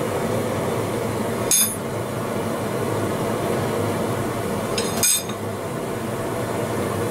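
Two sharp metallic clanks about three and a half seconds apart, steel tongs and bench vise knocking as hot iron is clamped and worked, over the steady running noise of a propane forge burner.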